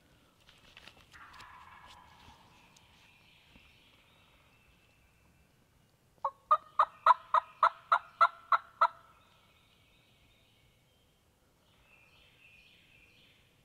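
A run of about ten loud turkey yelps, evenly spaced at roughly four a second and lasting under three seconds, from a turkey call.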